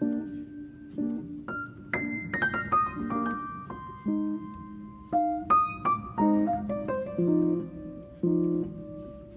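Background piano music, single notes and chords struck and left to ring.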